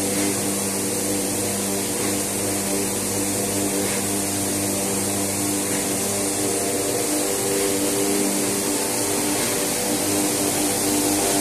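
52-inch high-speed fingerless corrugation machine running: a steady mechanical drone with several constant hum tones over an even hiss.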